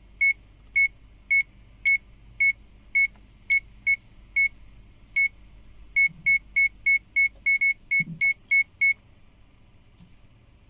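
ZOYI ZT-Y2 multimeter's buzzer beeping in short, high, evenly pitched pips as its non-contact voltage (NCV) detector picks up live mains voltage at a wall socket. The beeps come about twice a second, quicken to about three a second some six seconds in, and stop about nine seconds in.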